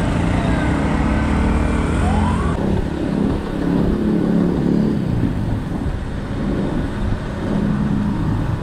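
Road traffic: motor vehicle engines running, with a brief rising whine about two seconds in.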